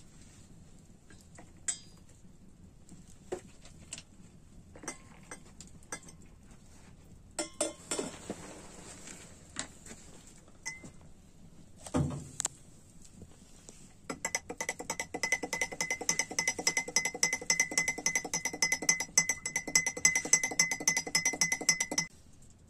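Metal teaspoon stirring in a tulip-shaped Turkish tea glass: a fast, even run of ringing clinks for about eight seconds in the second half, stopping sharply. Before it, scattered clinks and knocks of the teapot and glasses, with one thud about halfway through.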